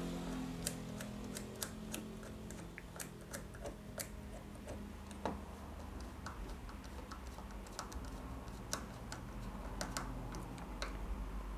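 Small screwdriver turning machine screws into a plastic block to tighten them against nuts. It makes irregular light clicks and ticks, a few to several a second, over a low steady hum.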